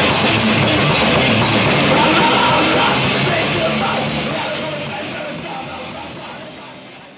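Punk rock band playing live, with drums and a singer's vocals over the full band, fading out steadily from about three seconds in.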